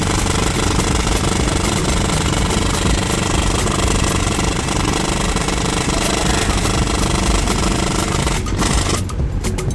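Loud, steady machinery noise on a merchant ship's open deck beside the funnel: a dense rattling rumble with a low drone underneath. About nine seconds in it cuts away to rhythmic background music.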